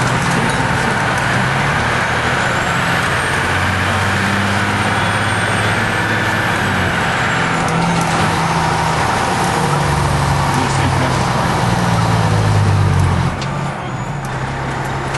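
A fire engine's Detroit Diesel engine running under way, heard from inside the cab, its note shifting in steps as it goes. It gets a little quieter near the end.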